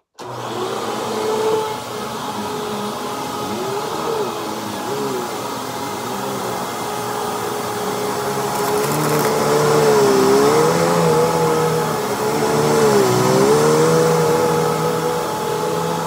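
Hoover WindTunnel Plus upright vacuum cleaner switched on and pushed over shredded paper on carpet. The motor starts suddenly and runs steadily, its pitch dipping and recovering several times as the vacuum is pushed through the paper.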